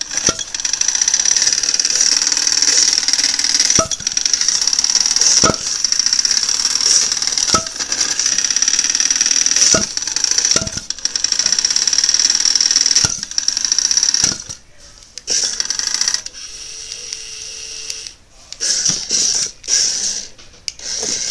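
Hexbug Tombstone toy robot's small electric motor spinning its 3D-printed asymmetric blade, a steady high whine, with sharp knocks every second or two as the robot hits things. About two-thirds of the way through, the whine breaks off and cuts in and out, with a short low hum in between.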